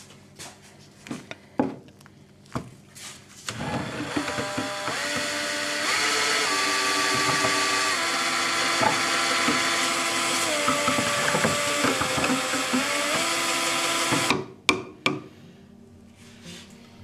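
Cordless drill spinning a mixing paddle in a tin can of two-component clear-coat varnish. It runs for about ten seconds, and its whine steps up and down in pitch several times as the speed changes. It starts after a few knocks of the mixer against the can and stops suddenly, followed by a few more knocks.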